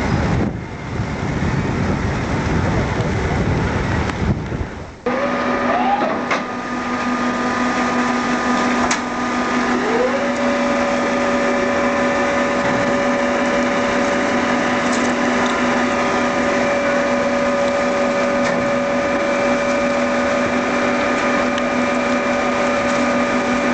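Ferry's mooring-deck winch machinery. A loud, even rumble gives way about five seconds in to a steady machine whine of several held tones. One tone rises and then holds steady about ten seconds in, as a motor comes up to speed.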